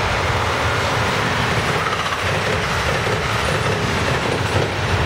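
NJ Transit passenger train of multilevel coaches passing close by, its wheels running steadily over the rails with a continuous rumble and rush.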